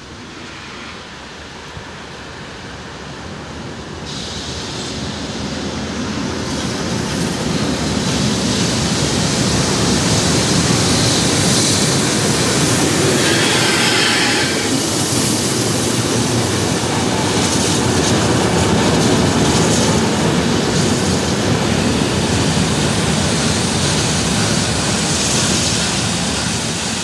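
Train approaching and rolling past on the rails, growing louder over the first several seconds and staying loud as it passes.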